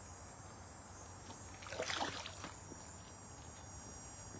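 Water splashing at the shoreline from a hooked largemouth bass thrashing in the shallows, with a louder splash about two seconds in.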